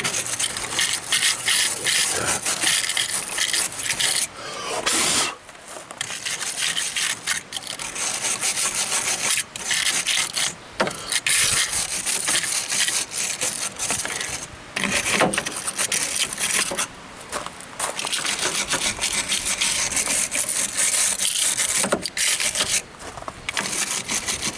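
Wire brush scrubbing corroded car battery terminals in rapid back-and-forth strokes, a harsh scratchy rasping, stopping briefly now and then.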